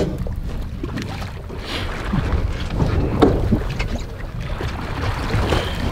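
Wind buffeting the microphone on a small boat at sea, a steady low rumble, with water sloshing along the hull and a few light knocks.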